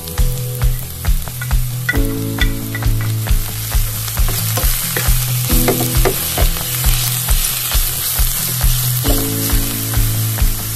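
Sliced king oyster mushrooms sizzling in hot oil in a nonstick pan as they are stirred with a wooden spatula. Background music with a steady beat plays throughout.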